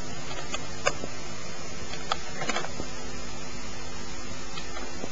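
Steady hiss and low hum of a home-video camcorder's recording, with a few faint clicks in the first three seconds.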